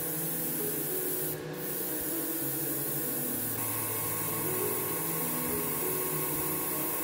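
Airbrush spraying paint in a steady hiss that cuts out briefly about a second and a half in. Soft background music with held notes plays underneath.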